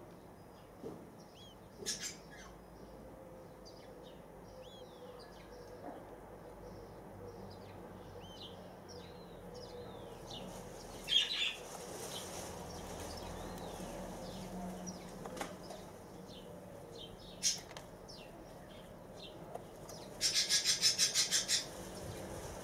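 A bird's wings flapping in one quick run of about ten beats near the end, over faint, scattered chirps of small birds and a couple of sharp clicks.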